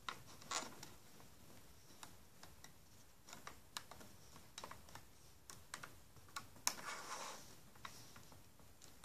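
Light, irregular clicks and taps of a crochet hook and rubber bands against the pegs of a clear plastic loom as the bands are hooked over, with a brief soft rustle about seven seconds in.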